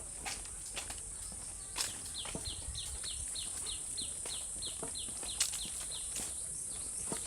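Steady high-pitched insect drone with scattered footsteps crunching on a rough trail. From about two seconds in, a bird gives a rapid run of short falling notes, about three or four a second, for some four seconds.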